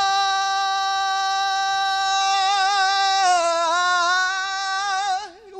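A single high male voice singing a cappella, holding one long steady note for about three seconds, then winding it up and down in a vocal run that falls away near the end.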